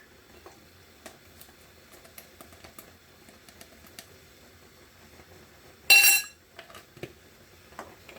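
Faint taps and clicks of spice containers being handled, with one loud, brief clink of a container about six seconds in.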